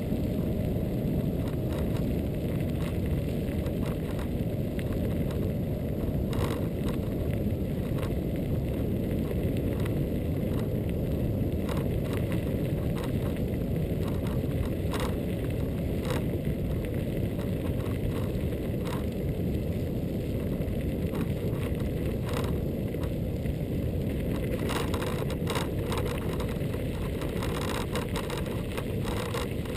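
Riding noise on a Xiaomi M365 electric scooter: a steady low rush of wind on the microphone and tyre rumble on the pavement, with scattered sharp clicks and knocks that come more often near the end.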